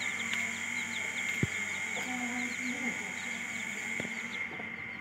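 Aseel chicks peeping over and over in short, falling chirps, while the hen clucks low about two seconds in. A sharp click comes about a second and a half in, and a steady high-pitched tone runs underneath.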